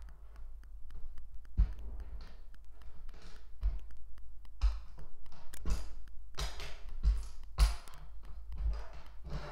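Plastic Lego pieces being handled and pressed together: irregular clicks, taps and dull knocks, with short rustles between them.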